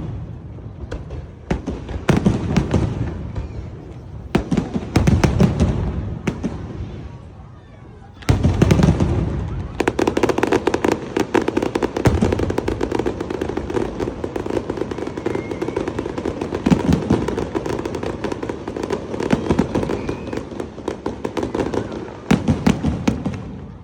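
Fireworks display: loud bursts every two seconds or so, then from about ten seconds in a dense, continuous barrage of rapid bangs and crackling.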